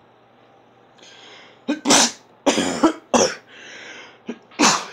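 A person sneezing and coughing into his shirt: after a drawn-in breath about a second in, four short loud fits, with another breath taken in before the last one.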